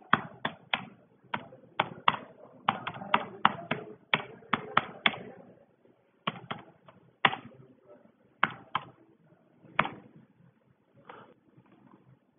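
Computer keyboard keystrokes as numbers are typed in and Enter is pressed after each one: a quick run of sharp clicks, dense for the first few seconds, then sparser and more spaced out.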